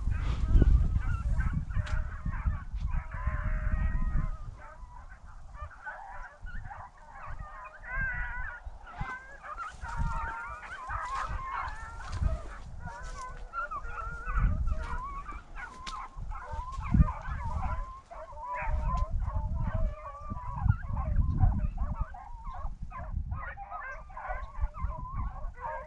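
A pack of beagles baying together in a continuous chorus of many overlapping, wavering howls: hounds giving voice as they run a rabbit.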